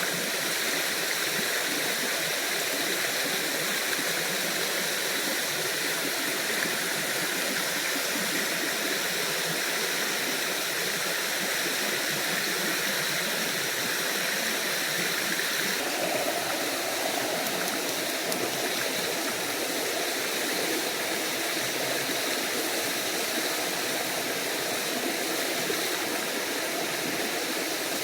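Small forest waterfall and stream running with a steady rushing wash. About halfway through, the tone shifts to a deeper rush.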